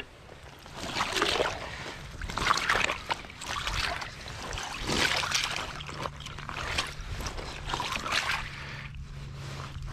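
Icy pond water sloshing and splashing in a hole chopped through the ice as gloved hands reach in and stir it, in repeated swells about once a second, with small clicks and knocks of broken ice chunks.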